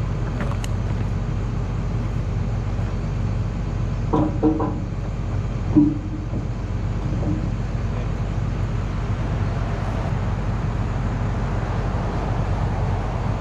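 John Deere excavator's diesel engine idling steadily, with a low, even hum. A couple of short pitched sounds cut in about four and six seconds in.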